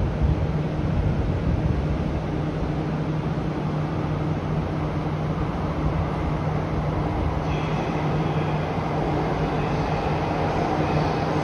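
West Kyushu Shinkansen N700S train approaching along the elevated track: a steady noise with a constant low hum, and faint high whining tones joining about seven seconds in.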